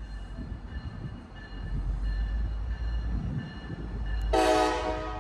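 Locomotive air horn giving one blast of about a second near the end, a chord of several notes, over a low rumble of an approaching train.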